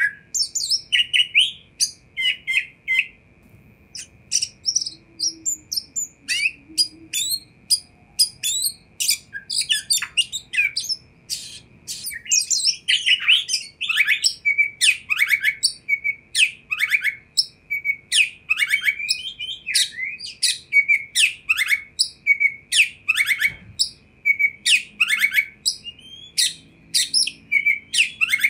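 Oriental magpie-robin (kacer) singing: a long run of fast, varied whistles and sharp chirps, with a few gaps over the first several seconds and then almost continuous. A faint steady high tone runs underneath.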